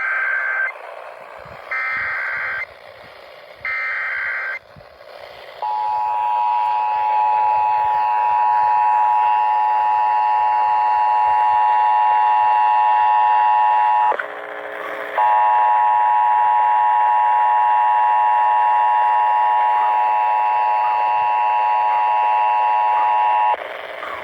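Emergency Alert System test tones played over a radio: three one-second bursts of digital header data, then the steady two-tone EAS attention signal, which breaks off for about a second about 14 seconds in and again near the end.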